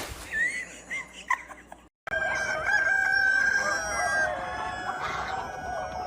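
A few short high chirps, then, after a brief break about two seconds in, a long drawn-out animal call held on a wavering pitch.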